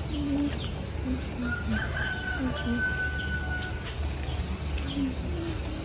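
A rooster crowing once, a long drawn-out call starting about a second and a half in, over a steady low hum and a constant high insect buzz.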